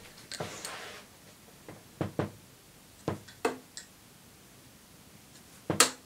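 Steel-tipped darts hitting a Unicorn sisal bristle dartboard: a few short, sharp knocks, two close together about two seconds in, two more a second later, and the loudest near the end.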